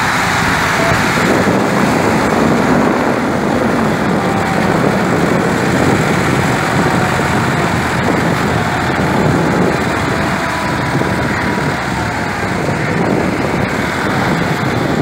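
Diesel engines of Massey Ferguson tractors running hard under load, hauling a trolley piled with sugarcane out of soft ground: a loud, steady, rough engine noise.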